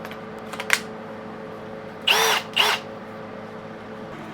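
Milwaukee 2804-20 18V cordless hammer drill: a light click, then two brief trigger pulls about two seconds in, the motor whirring up and stopping each time, the second shorter than the first.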